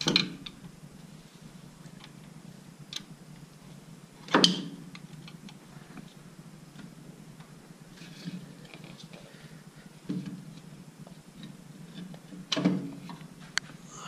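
Clicks and knocks of a Datsun 280Z air flow meter and its connections being worked loose and lifted out by hand. The loudest knocks come at the start, about four seconds in and near the end, with fainter clicks between.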